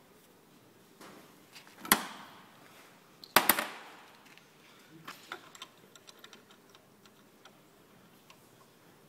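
Steel hand tools clinking on a bench as the Time-Sert installer is set up: a single metallic clink about two seconds in, a louder quick rattle of sharp clinks about a second and a half later, then a few light ticks.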